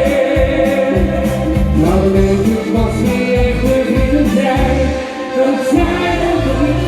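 A Dutch-language pop song playing: backing music with a steady beat and pulsing bass, between sung lines.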